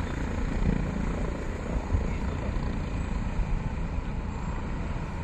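Helicopter on the ground with its rotor turning: steady turbine and rotor noise.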